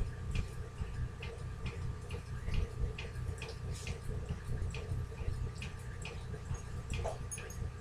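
Kitchen knife cutting tofu into small pieces on a cutting board: the blade taps the board in a steady rhythm, about two to three short clicks a second, over a steady low hum.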